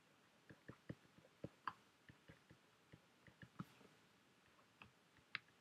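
Faint, irregular clicks and taps of a stylus on a tablet screen while handwriting, a few small ticks a second at uneven spacing.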